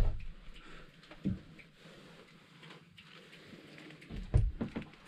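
Handling knocks and bumps as gear is moved about against the wall of a small hut: a sharp thump right at the start, a lighter knock about a second in, and a short cluster of thumps a little past four seconds.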